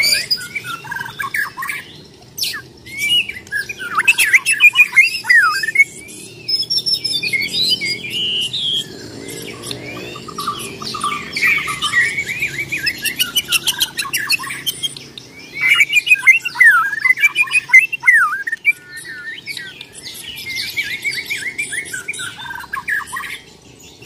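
White-rumped shama (Bornean murai batu) singing its aggressive fighting song: loud, rapid, varied whistled phrases with rising and falling slides, in bursts separated by short pauses.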